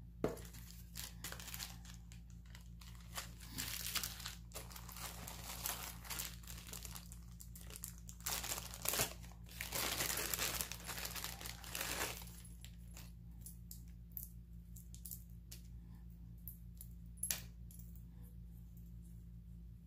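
Plastic wrapping crinkling and rustling as it is handled and opened, heaviest about eight to twelve seconds in, then scattered small clicks and taps.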